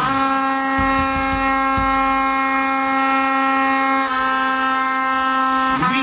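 A horn blown in one long, steady blast, a loud, reedy, single held note. The tone shifts slightly about four seconds in and stops just before the end.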